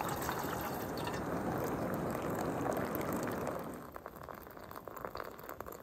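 Water from a backpacking cook pot poured into a collapsible silicone cup: a steady splashing stream that dies away about four seconds in, leaving softer trickling.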